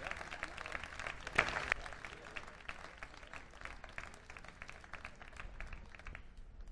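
Audience applause, scattered claps thinning out and fading toward the end, with one louder sharp crack about a second and a half in.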